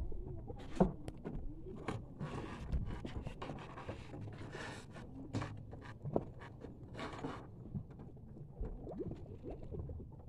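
Anchor being let go and its rope paid out over a boat's bow: a sharp knock about a second in, then a few seconds of scraping and rustling as the line runs out, with a second knock near the middle.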